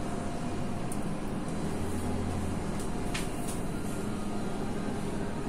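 Steady low machine hum, with a couple of faint light clicks.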